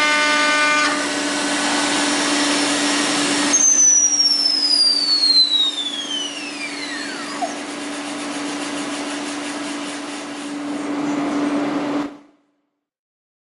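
A 300 W split-system vacuum pump runs with a steady hum under the noise of the CNC milling machine. About four seconds in, a high whine falls steadily in pitch over several seconds, as a spindle does when it spins down. All sound cuts off abruptly near the end.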